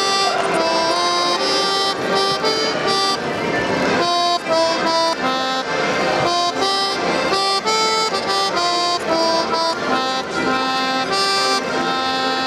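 Accordions playing a melody over held chords, the notes changing about two or three times a second.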